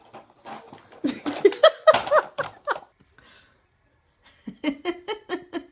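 Laughter in two bouts: a long pitched laugh with rising and falling squeals about a second in, then a quick run of short even "ha-ha" pulses near the end.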